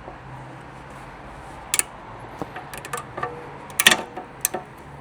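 Metal hand tools clicking and knocking against a car's rear suspension parts: a handful of sharp, irregular clicks and taps, the loudest about two seconds in and just before four seconds, over a faint steady hum.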